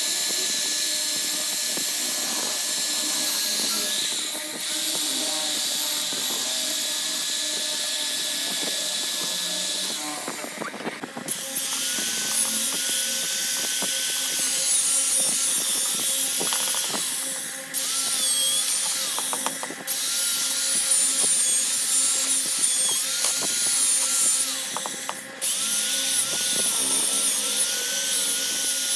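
Electric drill spinning a wire brush inside the carbon-caked ports and combustion chamber of a Bajaj Discover 100 cc motorcycle cylinder head, scouring off the carbon. It runs steadily with a whine, and about five times it briefly slows or cuts out before spinning up again.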